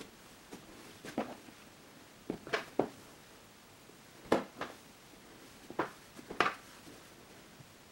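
Green cloud slime, made with instant snow, being squeezed, stretched and pressed by hand, giving short pops and clicks in small clusters, the loudest about four seconds in.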